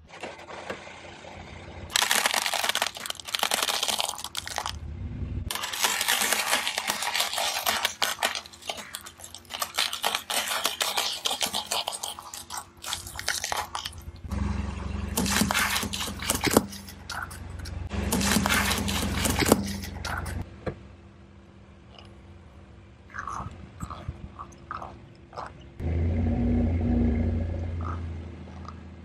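Car tyre rolling over and crushing a stack of hard taco shells: long spells of dense crackling crunch as the shells shatter. Later a low rumble from the car runs under the last crunches and comes back once more near the end.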